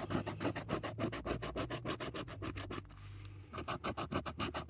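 Scratch-off lottery ticket being scratched: rapid back-and-forth rubbing strokes, about nine a second, with a short pause past the middle.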